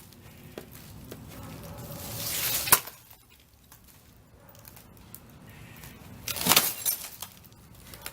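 Sledgehammer striking the glass screen of a plasma TV: a sharp smash with glass breaking about a third of the way in, then a second blow with cracking and crunching glass about two-thirds of the way in.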